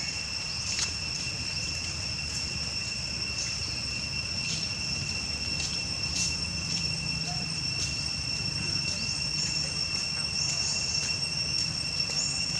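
Steady high-pitched insect call, one unbroken tone, over a low rumble, with scattered faint ticks.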